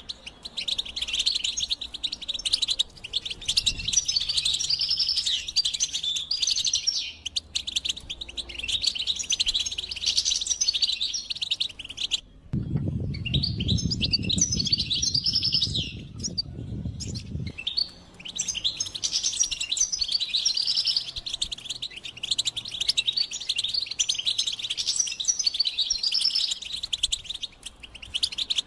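European goldfinch singing: a fast, continuous twittering of tinkling notes. About halfway through, the song thins for roughly five seconds while a low rumbling noise takes over.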